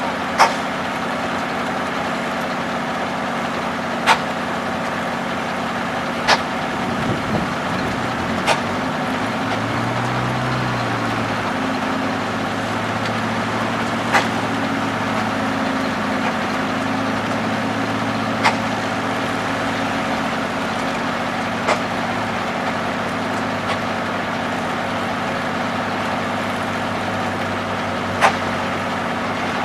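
Engine powering a circular sawmill, running steadily with a low pitched drone. Sharp clacks come every few seconds at uneven spacing.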